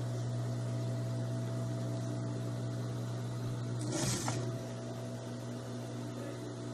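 Industrial sewing machine's motor humming steadily while the ruffle is pleated under the needle, with a brief burst of noise about four seconds in.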